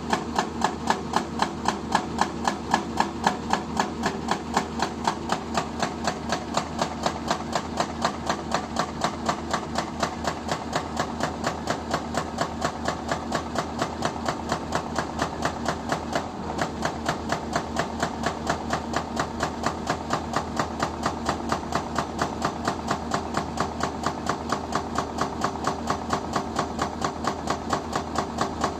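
Hydraulic breaker with a 155 mm chisel hammering in a rapid, even rhythm of sharp blows, over the steady running of the carrying excavator's engine.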